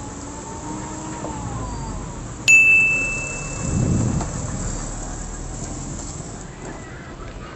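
A single bright electronic ding about two and a half seconds in, struck sharply and ringing out for about a second, the kind of bell chime laid under an animated subscribe-button graphic. A short dull low rumble follows about a second later, over a steady background hiss.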